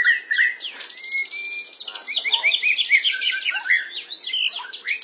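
Caged white-rumped shamas (murai batu) singing: a dense, fast stream of whistles, chattering notes and quick falling sweeps.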